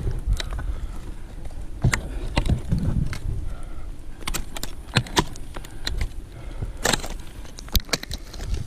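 Ice-climbing gear clinking and knocking: irregular sharp clicks in small clusters over a low rumble of wind and handling noise on the camera microphone.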